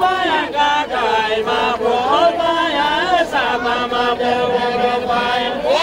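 Voices singing a Nepali Deuda folk song in a chanted style, with long held notes that bend up and down in pitch.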